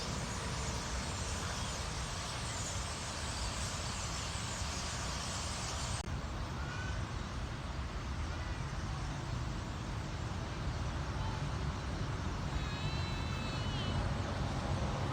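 Steady rumble of highway traffic mixed with the dense chatter of a huge flock of birds. The high chatter drops away abruptly about six seconds in, and a few wavering whistled bird calls stand out near the end.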